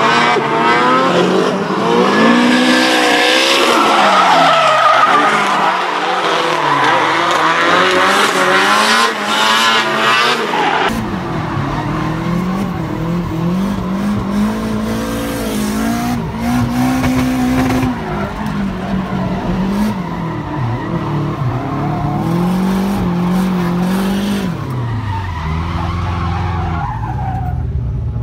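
Two Nissan S13 drift cars drifting in tandem: engines revving up and down with tyres squealing and skidding. About eleven seconds in the sound cuts to inside one of the cars, where its engine is heard revving and falling with less tyre noise.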